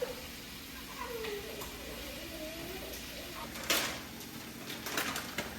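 A spoon stirring and knocking in a cooking pot, with one sharp clink about two-thirds of the way through and lighter clicks near the end. A wavering, wordless voice-like sound rises and falls in the first half.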